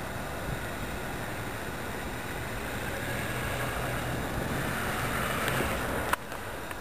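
Steady rushing noise of wind on the microphone, swelling over a few seconds, then cutting off suddenly with a click about six seconds in.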